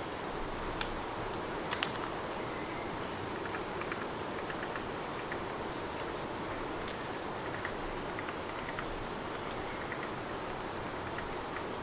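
Steady rain ambience, a continuous even hiss, with a few short high chirps scattered through it and faint small ticks.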